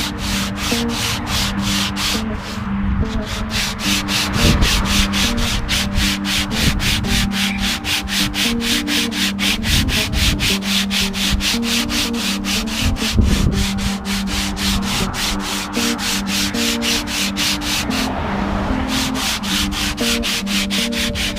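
Sandpaper worked by hand over wooden guitar necks in quick, even rasping strokes, about five a second, shaping the necks. The strokes pause briefly about two and a half seconds in and again near the end.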